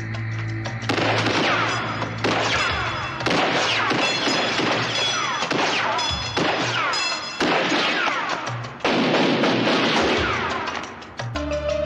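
Film shootout sound effects: a run of loud blasts of gunfire and crashing impacts, each starting abruptly and lasting a second or more.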